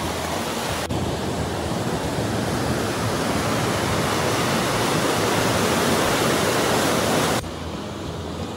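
Fast river water rushing over a weir and rapids, a steady loud rush. Near the end it drops suddenly to a softer, quieter rush.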